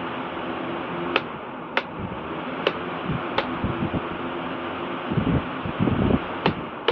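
Repaired wall fan running steadily: a smooth rush of air with no grinding or rattling noise. About six sharp clicks are scattered through, and low gusts of the fan's airflow buffet the microphone about five to six seconds in.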